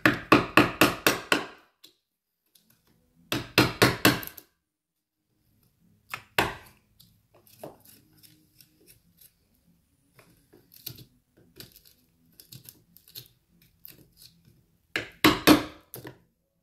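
A wood chisel being struck in quick runs of sharp blows, about five or six a second, cutting a mortise for a lock bolt into a wooden door. Three loud runs come at the start, after about three seconds and near the end, with a single knock and lighter tapping and chipping between them.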